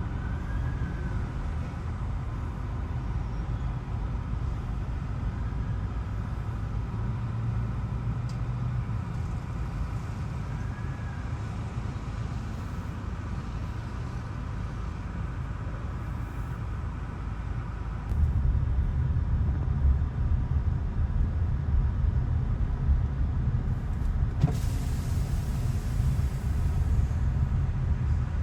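Steady low engine rumble of motor vehicles, stepping up louder about eighteen seconds in, with a hiss joining a few seconds before the end.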